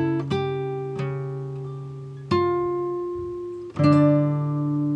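Background music of a plucked guitar: single notes and chords struck every second or so, each ringing out and fading.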